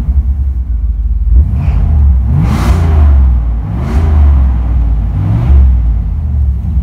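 1982 Chevrolet Camaro Z28's V8 engine heard from inside the cabin, the revs swelling and falling back three times over a steady rumble.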